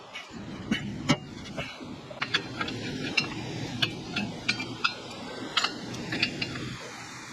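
Irregular metallic clicks and clinks as steel exhaust parts are handled and pliers work on an exhaust hanger bracket, over a steady low background noise.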